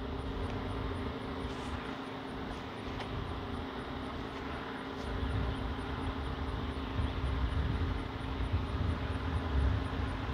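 Outdoor ambience: a low, uneven rumble that grows stronger in gusts during the second half, over a faint steady low drone.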